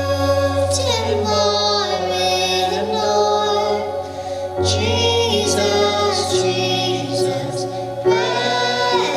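A man and a woman singing a Christian song as a duet, holding long sung notes over steady low accompaniment notes.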